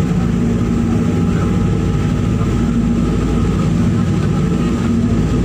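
A ship's engines droning steadily while under way: a low, even hum made of several steady tones over a rushing noise.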